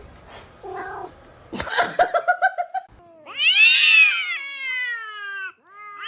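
A cat yowling: one long drawn-out call, rising and then falling in pitch, about halfway through, with a second call starting just before the end. Before it comes a quick run of short pulses.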